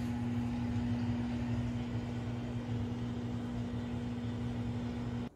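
Steady mechanical hum: a constant low tone with a faint hiss over it, cutting off suddenly near the end.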